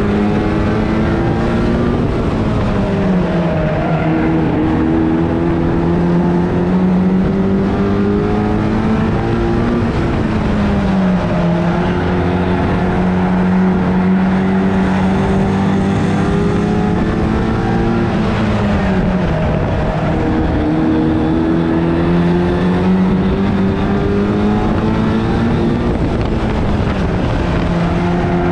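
A 1300cc stock car's engine racing at a steady high pitch, heard from on board. About every eight seconds the note drops as the driver lifts for a bend, then climbs again down the straight, four times in all.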